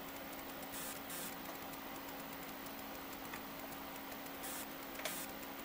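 Steady low hum and faint hiss of running bench test equipment, with a few brief soft rustles about a second in and near the end, and a faint tick or two.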